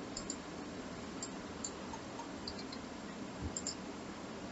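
Faint computer mouse clicks, a few scattered single and paired clicks, over a steady low hiss.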